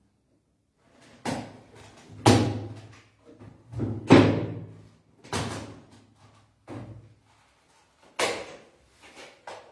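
A series of about eight sudden thumps and knocks, several seconds apart and uneven. A low electrical hum comes in about two seconds in and stops about seven seconds in.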